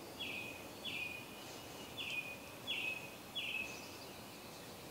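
A bird calling outside: a short, high, falling note repeated about five times, faint against quiet background noise.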